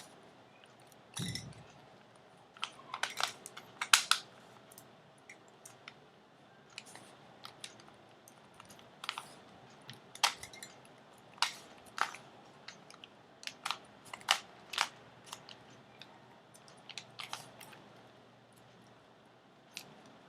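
Plastic Rubik's cube being twisted by hand: irregular clacks and clicks of the layers turning, some sharper than others, with a dull knock about a second in.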